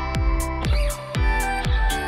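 Background electronic music with a steady beat: deep kick-drum thumps about twice a second under ticking hi-hats and sustained synth notes.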